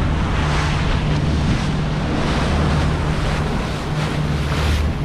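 Boat under way on open sea: a steady low engine hum under wind buffeting the microphone and the rush of water and waves.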